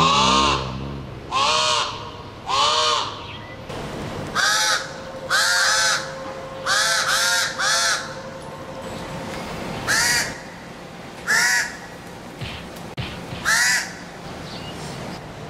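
Pied crows cawing: about a dozen harsh caws of roughly half a second each, irregularly spaced, several coming in quick runs of two or three.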